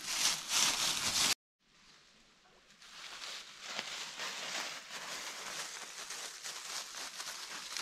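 Footsteps crunching and rustling through dry fallen leaves. The crunching cuts off abruptly about a second in, then starts again softly and builds into steady crunching.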